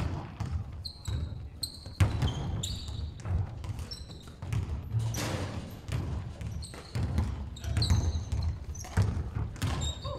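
Basketball dribbled and bouncing on a wooden sports-hall floor, with several players' sneakers squeaking in short high chirps and footfalls thudding, echoing in the large hall.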